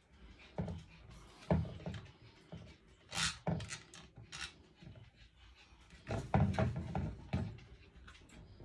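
A round LED ceiling light fixture knocking and scraping in short, irregular bumps against the ceiling and its mounting hardware as it is held up and shifted to line up its screw holes.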